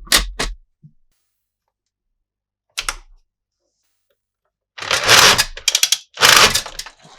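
Hard plastic toy pieces clicking and clattering. There is a click at the start, another about three seconds in, then a loud rattling clatter of many rapid strokes from about five seconds in.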